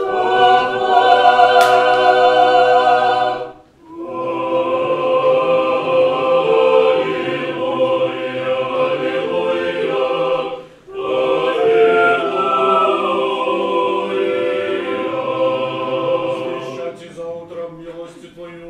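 A mixed choir singing Orthodox liturgical chant a cappella in sustained chords. The singing stops for a moment twice, and it thins and fades near the end.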